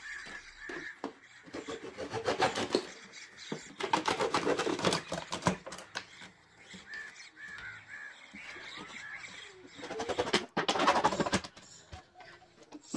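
Serrated bread knife sawing through a plastic milk jug, in several bursts of rasping strokes.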